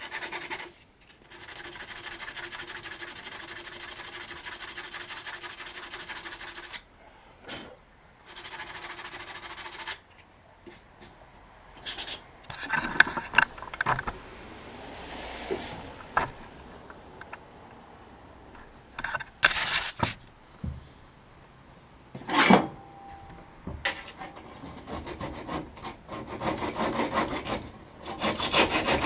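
Hand work on wood in a workshop. It opens with a steady rubbing run of several seconds and a shorter one after it. Then come scattered scrapes and a few sharp knocks, and near the end quick, repeated rasping strokes like sanding or filing.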